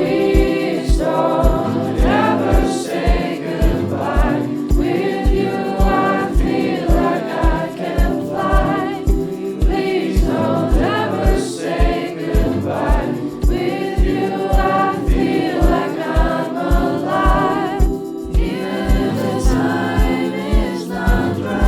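A pop song with a steady kick-drum beat, about two beats a second, and several voices singing together over it.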